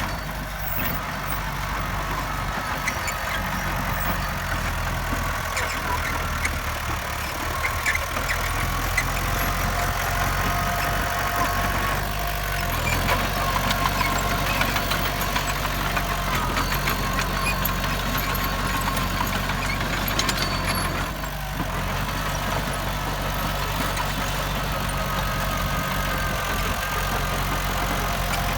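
Heavy diesel engine of earthmoving machinery running steadily, its level dipping briefly about three-quarters of the way through.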